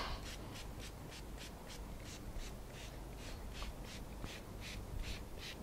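Trigger spray bottle squirting water in quick repeated pumps, about three short hissing sprays a second. The water mists a thin cedar board damp so the Gorilla Glue will activate.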